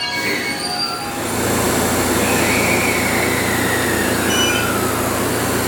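JR West 225 series and 223 series electric train pulling out and passing. In the first second the traction motor tones fade. Then, from about a second in, a louder steady rolling noise of wheels on rail takes over, with a high tone that slides down in pitch.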